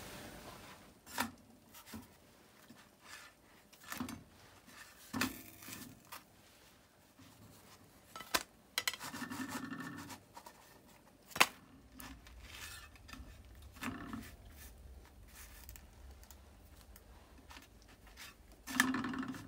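Faint handling sounds of turnovers being dry-fried in an oil-free metal frying pan: scattered sharp clicks and knocks against the pan, and dough scraping and rubbing on the metal as the turnovers are picked up, turned and laid down by hand.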